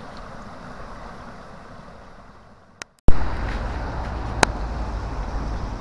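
Steady rush of water from a small waterfall on a woodland stream. After a cut about three seconds in, a louder deep rumble of wind on the microphone outdoors in the rain, with one sharp click about a second later.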